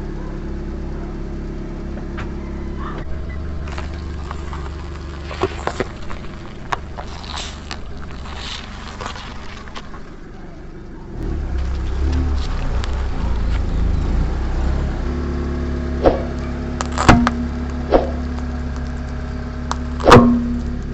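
Car engine running at low revs, louder about halfway through as the car pulls forward, then four sharp pops and cracks near the end as objects burst and break under the tyres.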